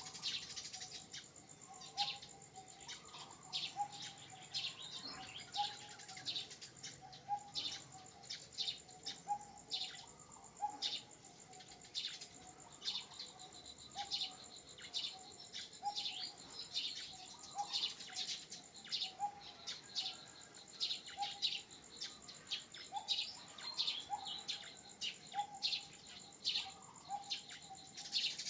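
Many birds chirping and calling together, with a steady high insect buzz underneath and a lower note repeating about every half second.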